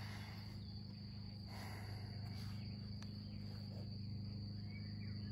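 Steady high-pitched trill of crickets over a low steady hum, with faint scratching of a pencil on drawing paper.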